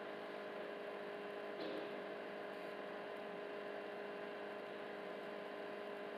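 Induction cooktop humming steadily, a faint electrical hum with a few steady tones, while a spatula stirs potato halwa in a non-stick pan, with a brief soft scrape about a second and a half in.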